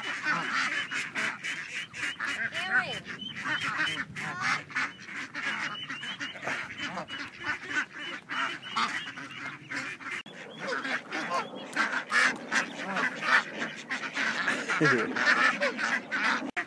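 A crowd of ducks calling over one another while being fed, a dense continuous din of overlapping quacks and honks.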